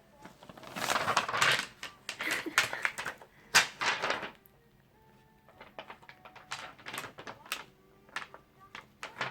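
Handling sounds of a small object: rustling in bursts, a sharp tap about three and a half seconds in, then a run of light clicks and taps near the end.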